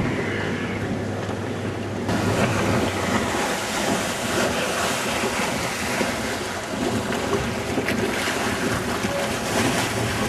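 Yamaha F100 four-stroke outboard driving a fishing boat fast through choppy water close by, its engine drone mixed with the rush and slap of water at the hull. Wind on the microphone gets louder about two seconds in.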